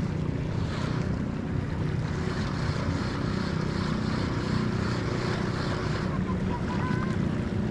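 Steady drone of a fishing boat's diesel engine, with wind noise on the microphone and water around the hull.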